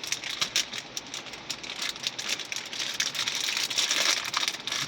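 Crinkling and crackling of a plastic candy bag of Nerds candy corn being pulled and twisted while it won't tear open.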